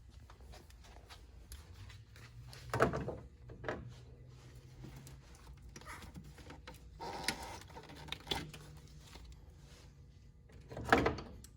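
Scattered knocks and clatters of hands and tools working a PCV hose loose under a car's intake manifold, the loudest near the end, over a faint low hum.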